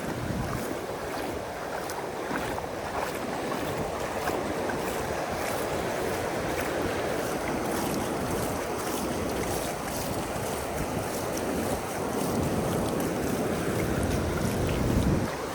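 Ocean surf washing steadily onto the shore, with wind buffeting the microphone.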